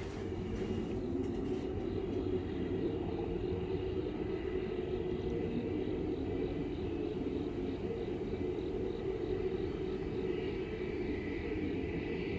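A steady low rumbling drone in the open air, with no rises or breaks. The recorder takes it for a strange sound coming from the sky rather than from traffic.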